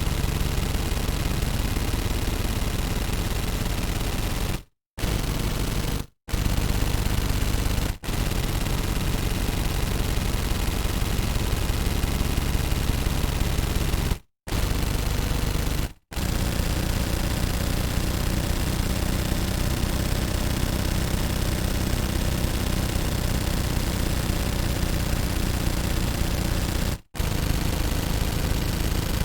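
Automatic gunfire: long bursts of rapid fire, broken by brief pauses at about five, six, eight, fourteen, sixteen and twenty-seven seconds in.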